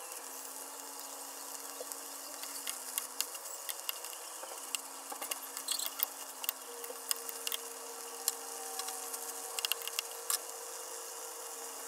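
Eggplant and ground meat in oyster sauce sizzling in a stainless steel pot as it is stirred with a metal spoon: a steady hiss full of small crackles and pops, with scattered clicks of the spoon against the pot. A faint steady hum runs underneath.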